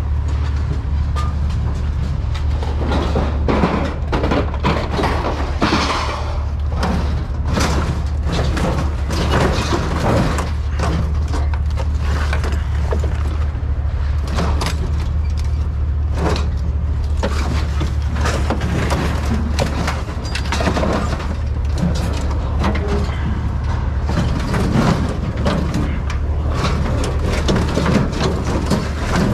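Scrap steel clanking and banging in many irregular knocks as pieces are thrown off onto a pile, over a steady low hum.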